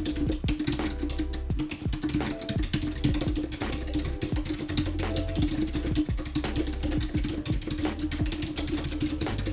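Fast typing on a split computer keyboard, a quick run of keystroke clicks, over background music with a steady bass line.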